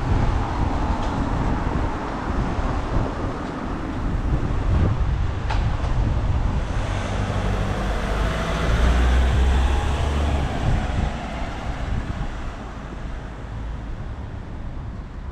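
Road traffic going by, with a heavy vehicle passing close about eight to eleven seconds in, after which the rumble fades.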